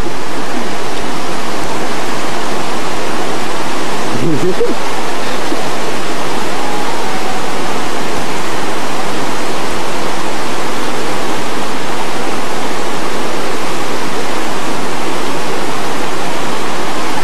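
A fast-flowing river rushing over rocks, a loud, steady wash of water noise.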